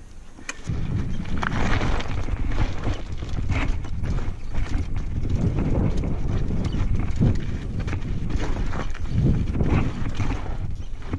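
Full-suspension Trek mountain bike rolling down loose volcanic scree: tyres crunching over stones with a continuous stream of knocks and rattles from the bike, over a low rumble. It sets in about a second in, after a quieter moment.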